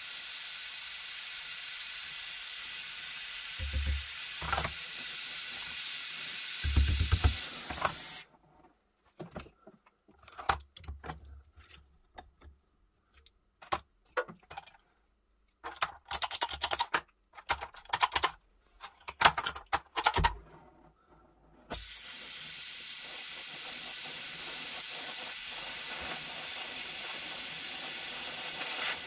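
Oxyacetylene torch flame hissing steadily while it heats a steel pistol mainspring held in a vise for bending. The flame goes out about eight seconds in, leaving a stretch of scattered clicks and knocks. The torch hisses again from about twenty-two seconds in.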